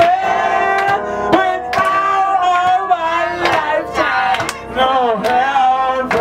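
A man singing through a microphone, drawn-out held notes that bend in pitch, with sharp percussive hits keeping time.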